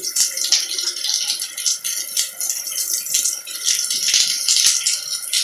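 Heavy thunderstorm downpour: a dense, steady hiss of rain with many sharp ticks of drops splashing close by.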